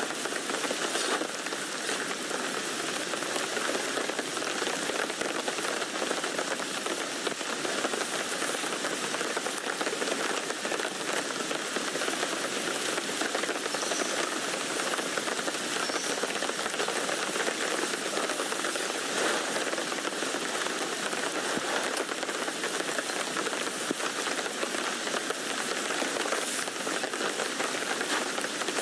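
Steady rain falling on a tent, heard from inside, with a few single drops standing out now and then.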